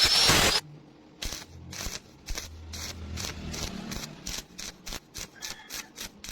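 A loud steady rushing noise with a thin high whine stops suddenly about half a second in. Short scraping strokes on metal follow, two to three a second and getting quicker, like a wire brush or chipping hammer worked over a weld.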